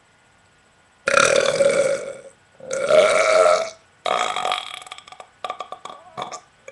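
A person burping loudly three times in a row, each burp lasting about a second, the third trailing off into a crackly, stuttering rattle.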